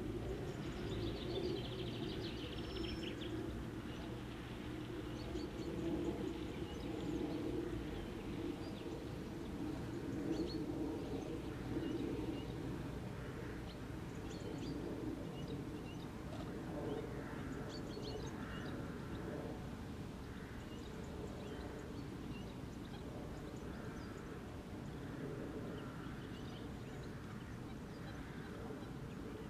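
Small birds calling now and then over a steady low background rumble.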